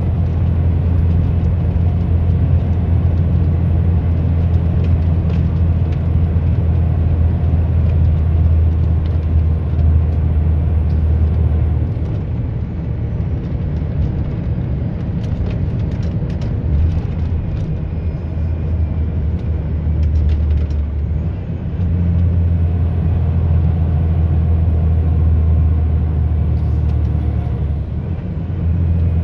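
Road vehicle driving at speed: a steady low rumble of engine and tyres, easing slightly about twelve seconds in and again a little past twenty seconds, with a thin high whine that drops out partway through and returns.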